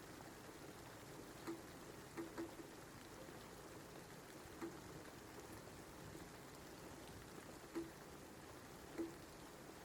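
Steady, faint rain with six louder drips landing on a surface, each a short low plink.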